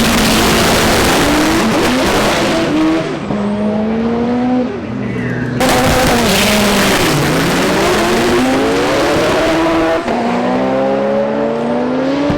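Front-wheel-drive drag car engine accelerating hard through the gears: the revs climb and drop back at each shift, about four and a half seconds in, again around ten seconds and once more near the end. Loud hiss rises over the engine near the start and again about halfway through.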